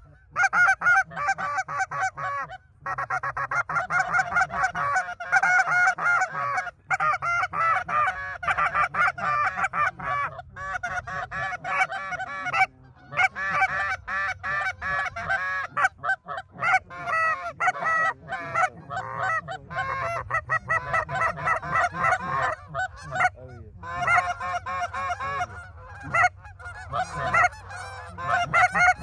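Several hunters' goose calls blown at once in a constant chorus of short honks and clucks, calling a flock of geese in to the decoys.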